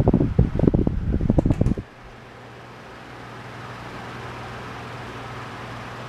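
Galaxy oscillating table fan running: its airflow blows straight onto the microphone as loud, gusty wind rumble, which stops abruptly just under two seconds in as the head swings away. What remains is the fan's steady low hum and a soft rush of air.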